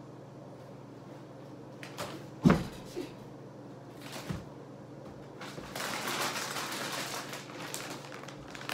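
A child getting down from a kitchen counter and shutting a wooden cupboard door: a loud thump about two and a half seconds in, lighter knocks just after and about four seconds in, then a few seconds of rustling as she moves about.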